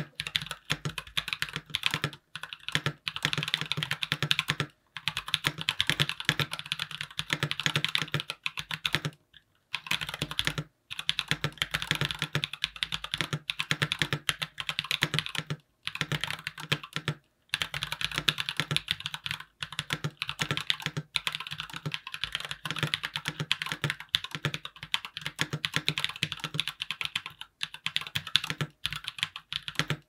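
Continuous fast typing on a GMMK Pro mechanical keyboard with PBT keycaps, its switches still unlubed. A dense run of key clacks with a few short pauses, the longest a little over a second about nine seconds in.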